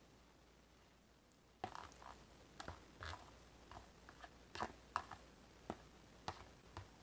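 Metal spoon scraping chili out of a black plastic container onto a plate: a dozen or so short, irregular scrapes and soft clicks that start about a second and a half in, after near silence.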